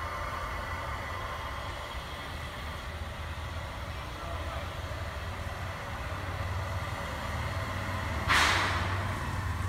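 Steady low rumble of a rail yard, then about eight seconds in a sudden loud hiss that fades away over about a second.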